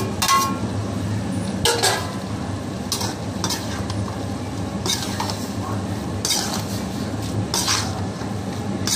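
Perforated steel ladle scraping and clinking against an aluminium kadai as boiled fusilli pasta is tipped in and stirred through cooked vegetables. There are about seven strokes, roughly a second apart, over a steady low hum.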